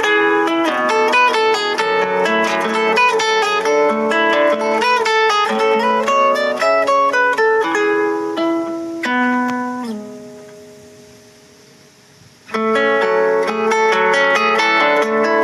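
Instrumental music on a plucked string instrument, a quick flowing melody over a repeating accompaniment. About nine seconds in a chord is struck and left to fade away, and after a short near-pause the flowing pattern starts again.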